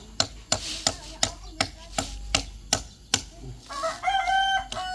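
Steady hammering, about two to three blows a second: a hammer driving nails through a wooden batten to hold down shade netting on a roof. About four seconds in, a long held pitched call sounds over the blows.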